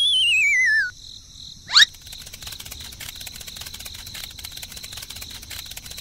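A wavering whistle-like tone glides downward for about a second, then a short, loud rising swoosh comes just before the two-second mark. After that, a steady chorus of crickets chirps, fast and dense, for the rest of the time.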